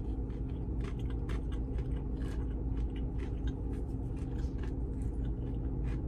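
Close-up crunchy chewing of a crispy buttermilk-breaded fried chicken sandwich: a quick, irregular run of small crunches. Under it is a steady low hum inside a vehicle cab.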